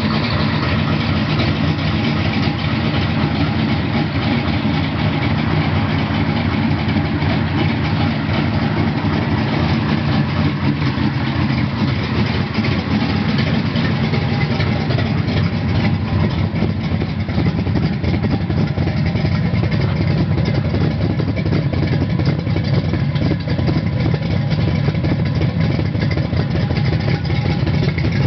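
A 1979 Camaro's 427 cubic-inch big-block Chevrolet V8, built to about 600 hp, idling loudly and steadily.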